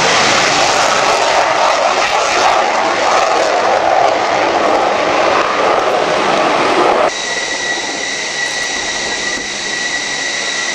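F-14A Tomcat's twin TF30 turbofan engines running at takeoff power through the takeoff roll and lift-off as a loud, dense jet noise. About seven seconds in it cuts off abruptly to a quieter, steady high-pitched turbine whine from another F-14 taxiing close by.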